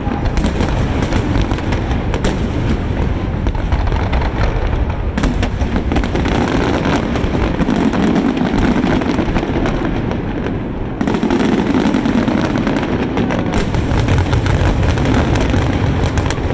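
Dense, nonstop fireworks: overlapping low booms with many sharp crackles and pops layered on top.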